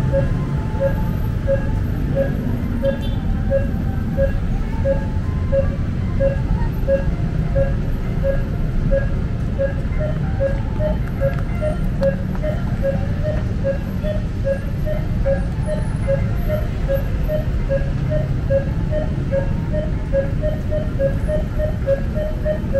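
Pedestrian crossing signal beeping in a steady rapid series of short tones, the beeps quickening and rising slightly in pitch about ten seconds in, over a steady rumble of city traffic.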